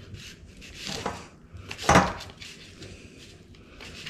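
Knife and fork cutting through a smoked boneless chicken breast on a plate, with irregular scraping and sawing strokes and the clink of cutlery on the plate, loudest about two seconds in.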